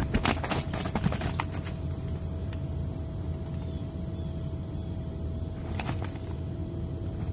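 A large puppy's paws thump on the inflated vinyl of a bounce house, several knocks in the first second or so and one more near the end. Under them runs the steady hum and rumble of the bounce house's blower fan.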